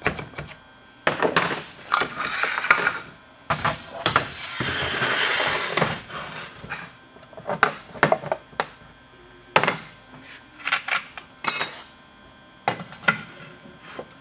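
Metal clicks, knocks and rattles of a 42-inch chainsaw bar and chain being handled and fitted onto a saw's powerhead, with a longer rattle of chain links about four to six seconds in.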